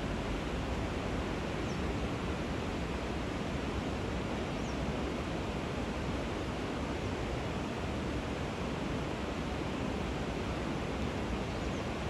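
Steady rushing of river water at a weir, with a few faint short high chirps.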